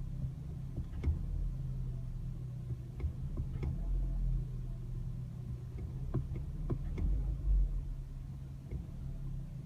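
Car engine running with a steady low hum, with short sharp knocks at irregular moments, about seven in all. This is the noise the owner hears from the car when accelerating.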